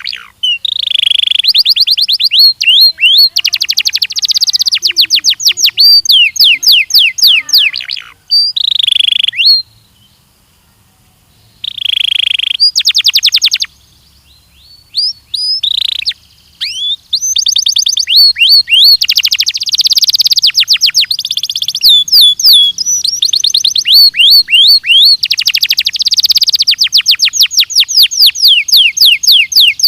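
Belgian canary singing its song in rapid trilled phrases of quickly repeated high notes, with a few short pauses between phrases.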